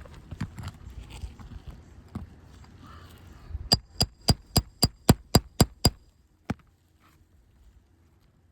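Hammer striking steel in about nine quick ringing taps, roughly four a second, then one more tap. This is typical of a roofing hammer driving a nail puller under shingle nails. Before the taps there is low scuffing and rustling against asphalt shingles.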